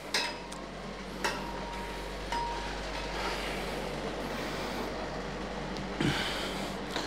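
A few scattered sharp clinks and knocks over a steady low hum.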